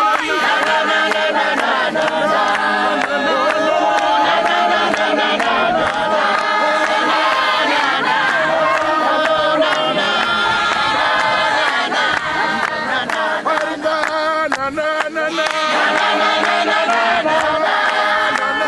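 An Apostolic church congregation singing a hymn together in chorus, many voices at once at a steady, full level.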